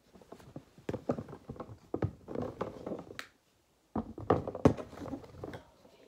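A hand rummaging through small fidget toys in a plastic bin: irregular tapping, knocking and clattering, stopping briefly a little past the middle.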